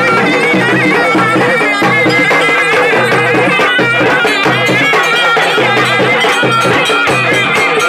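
Traditional South Indian folk drums beaten with sticks, with a high, wavering melody line over them. The drum strokes come thicker and faster about halfway through.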